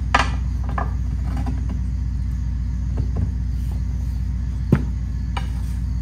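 Steel tire irons clinking and scraping against a steel wheel rim as a tractor front tire is levered onto it, with sharp clanks just after the start and about four and a half seconds in. A steady low machine hum runs underneath.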